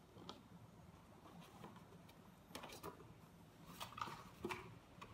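Faint handling of cardboard packaging: a few soft taps and scrapes as boxes inside a shipping box are lifted out, mostly in the second half.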